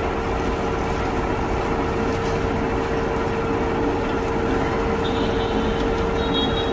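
Mitsubishi manual metal lathe running steadily while a single-point tool cuts an 8 mm pitch thread along a shaft: an even machine noise with a constant mid-pitched whine.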